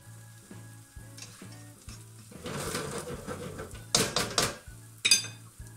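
Beaten eggs sizzling in a hot oiled non-stick frying pan as a plastic slotted spatula stirs and spreads them, with a few sharp knocks of the spatula against the pan near the end.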